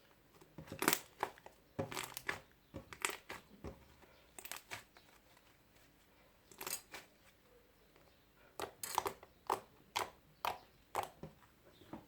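Homemade fluffy slime of glue, boric acid and shaving foam being squeezed and worked by hand, giving irregular clusters of short crackles and pops.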